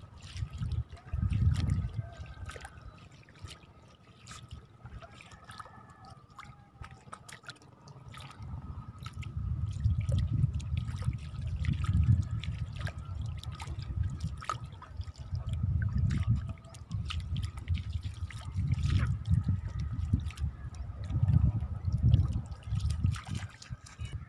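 Wet tidal-flat ground underfoot: water trickling and dripping, with squelching, splashing steps through shallow pools and mud. Uneven low rumbling gusts swell and fade throughout, and a faint steady high tone runs beneath.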